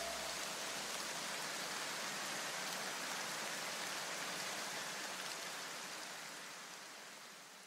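Faint, even rushing hiss with no beat or tones, fading away toward the end.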